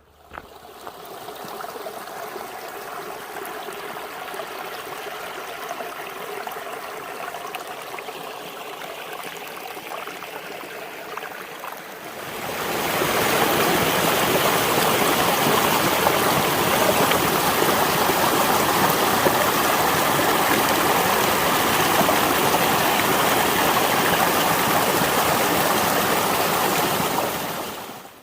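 A creek running steadily over rocks, moderate at first, then much louder and fuller from about halfway through, stopping suddenly near the end.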